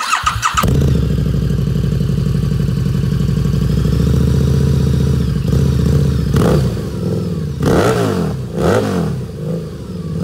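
Harley-Davidson Night Rod Special's Revolution V-twin, fitted with drag pipes, starting up with a brief starter clatter, catching and settling into a steady, loud idle. In the second half it is given three quick throttle blips, each rising and falling back to idle.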